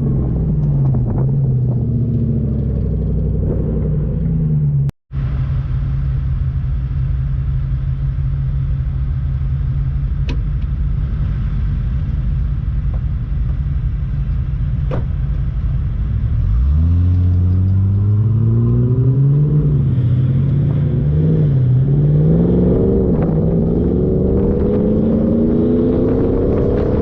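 Off-road 4x4's engine: its pitch falls as it slows, it runs steadily for about ten seconds, then revs up and eases off several times in rising and falling surges from about sixteen seconds in. A very brief break in the sound about five seconds in.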